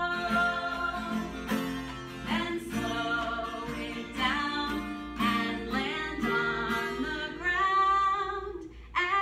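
A woman singing a children's movement song, accompanying herself on a strummed acoustic guitar.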